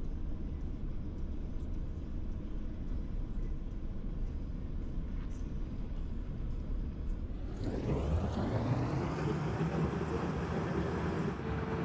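Road and engine noise of a moving car heard from inside the cabin, a steady low rumble. About seven and a half seconds in, a louder rushing sound with a low engine hum swells in and holds.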